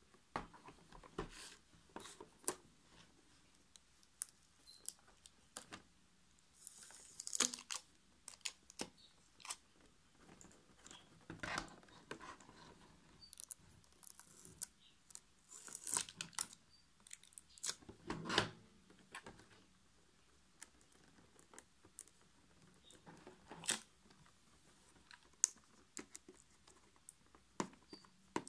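Clear hard-plastic clipper packaging being handled: scattered clicks and taps, with short crinkling crackles of plastic every few seconds.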